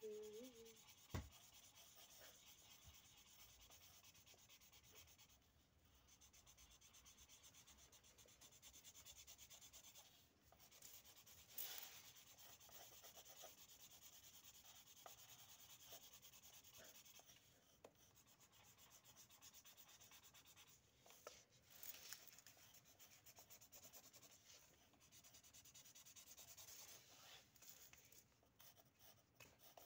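Faint scratching of pencils drawing and colouring on paper, in stretches of strokes that come and go, with a light tap about a second in.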